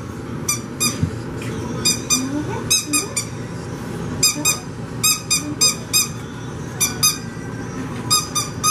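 Squeaky dog toy squeezed over and over, in quick runs of several sharp, high-pitched squeaks with short pauses between the runs.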